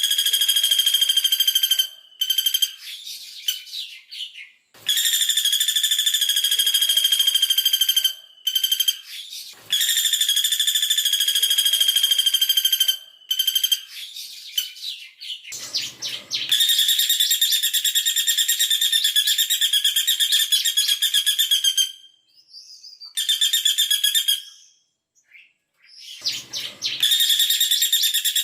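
Female caladi bawang woodpecker giving fast, tightly packed trills (the 'double shot' call) at one high, steady pitch, in bursts of two to five seconds with short breaks and fainter broken calls between them.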